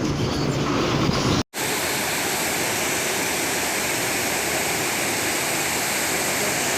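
Floodwater rushing in a swollen river, a steady, even rush of water. For the first second and a half, wind buffets the microphone. After a brief cut, only the water is heard.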